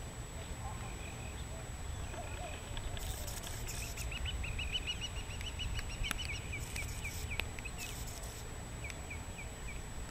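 A bird calling a rapid series of short, rising chirps through the middle, then three more chirps near the end, over a steady low background rumble.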